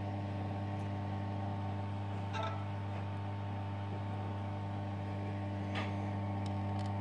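Steady low electrical hum of an aquarium pump running, with evenly spaced overtones, and a couple of faint clicks.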